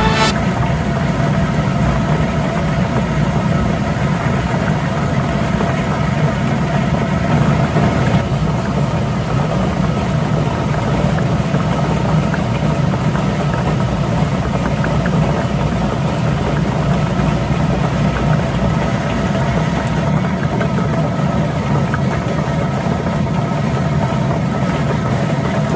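A steady motor hum that runs on evenly without a break.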